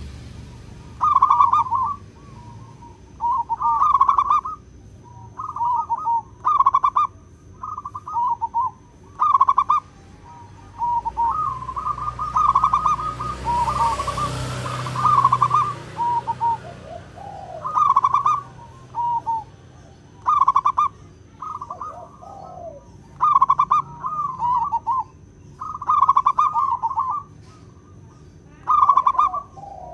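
Zebra dove (perkutut) cooing: repeated phrases of quick staccato coo notes, a phrase every second or two.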